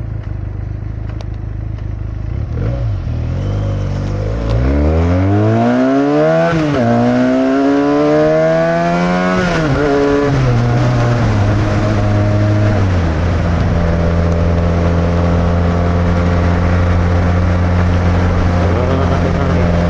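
Benelli touring motorcycle engine, heard from a helmet-mounted microphone, running at low revs and then, about five seconds in, accelerating with a rising pitch through two gear changes that each drop the note. It then settles to a steady cruise.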